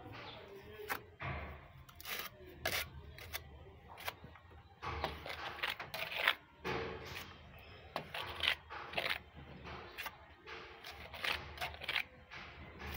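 Irregular scraping and dabbing strokes of a hand working thick textured paint into a rough exterior wall, each stroke a short rasp.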